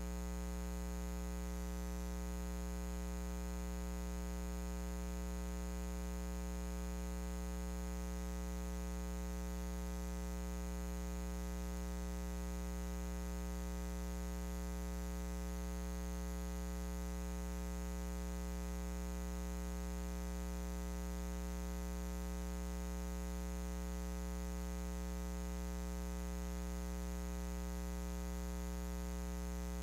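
Steady electrical mains hum with many evenly spaced overtones over a faint hiss, unchanging throughout.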